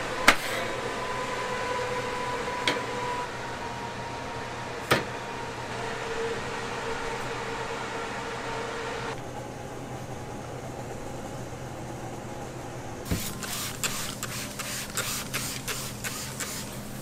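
Three sharp knocks, a couple of seconds apart, as hot sponge cakes in their tins are set down one by one on a metal wire cooling rack, over a steady machine hum that drops away about nine seconds in. Near the end there is a quick run of light clicks and rustles.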